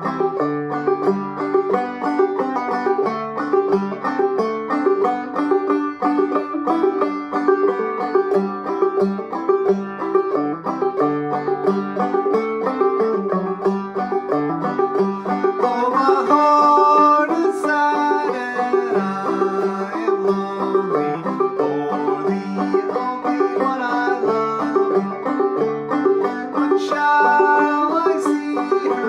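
Gold Tone CC-Carlin 12 five-string open-back banjo played clawhammer style: a steady run of plucked melody notes over the drone string, with a couple of brighter ringing notes partway through.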